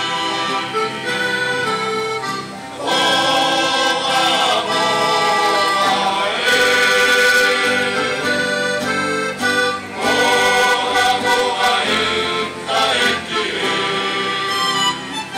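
A men's sailors' choir singing a sailors' song to accordion accompaniment, growing louder about three seconds in.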